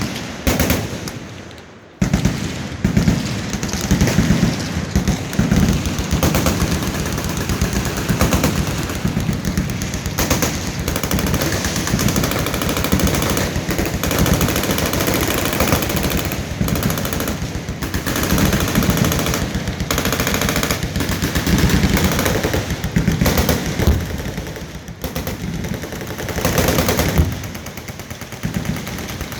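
Many machine guns firing full auto at once on a firing line, their bursts overlapping into a nearly unbroken din. A short burst comes first, then a brief lull, and about two seconds in the fire starts up and goes on without a break.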